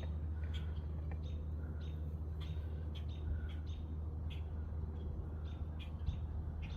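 A steady low hum throughout, with a string of short, light high-pitched ticks or chirps a few tenths of a second apart.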